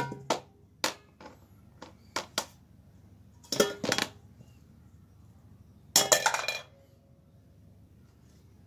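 A patterned metal bowl knocking and clattering against the floor as a toddler handles it. There are several single knocks at first, then a burst of clatter about three and a half seconds in, and a longer one about six seconds in that leaves a brief ring.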